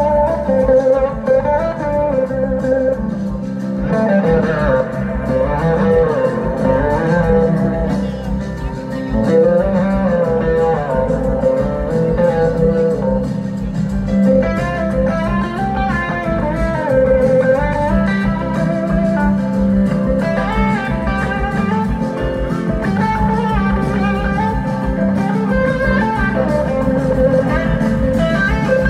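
Live blues-rock band playing an instrumental passage, an electric guitar taking the lead with gliding notes over the rest of the band.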